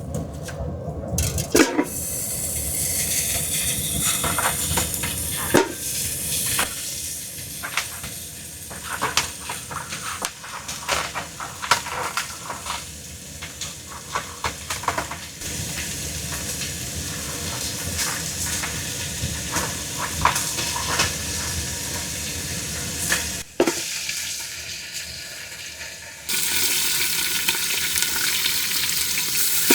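Beef shanks browning in hot peanut oil in a pan: a steady frying sizzle with scattered clicks and knocks of a utensil against the pan. The sizzle jumps in level a few times, loudest near the end.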